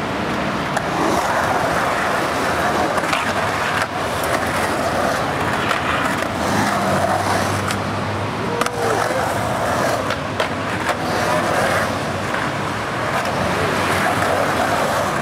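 Skateboard wheels rolling on hard pavement, with several sharp clacks of the board hitting the ground through tricks and landings.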